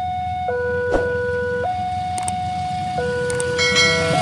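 Railway level-crossing alarm sounding its two-tone warning, a low and a higher tone taking turns about every second and a half. Near the end a diesel locomotive's horn joins in and the train's rumble builds as it approaches.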